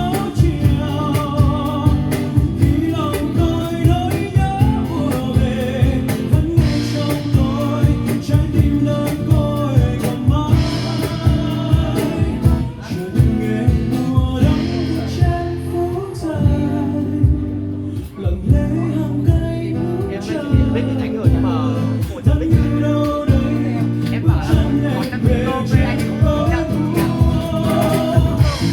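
Music: a man singing a Vietnamese song over a strummed guitar.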